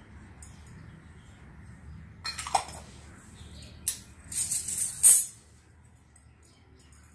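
Miniature stainless-steel toy dishes and spoons clinking and tapping together as they are handled and set down. There is a cluster of light metallic clinks, one with a short ring, from a little over two seconds in, and the loudest clink comes about five seconds in.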